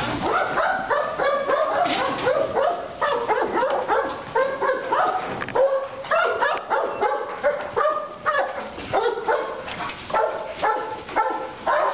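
A working sheepdog barking over and over at a pen of sheep, in quick runs of about three barks a second with short breaks.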